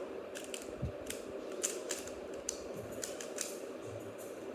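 Plastic 3x3 speedcube being turned by hand: quick, irregular clicking as its layers snap round, several turns a second, over a steady low hum.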